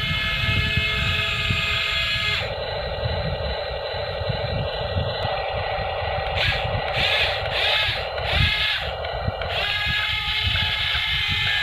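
Small electric motors of a toy RC excavator whining steadily, with a low rumble underneath. The whine changes character about two and a half seconds in and changes back near the end.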